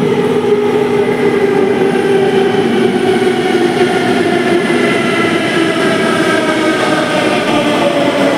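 Delhi Metro train pulling into an underground station platform, a loud steady rumble with a whine that falls slowly in pitch as the train slows.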